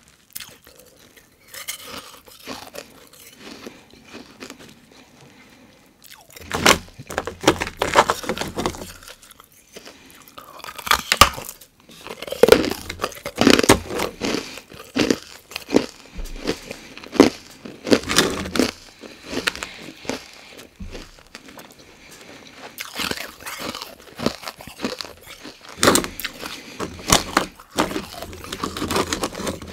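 Close-miked mouth crunching and chewing of carbonated ice: quiet for the first few seconds, then loud crunches in dense runs with short pauses between bites.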